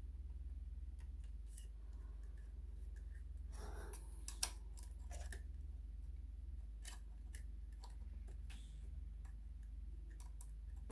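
Scattered light clicks and taps of small metal parts being handled, as a metal mounting plate and screws are fitted to a floppy disk drive, with a short soft scrape about four seconds in. A steady low hum runs underneath.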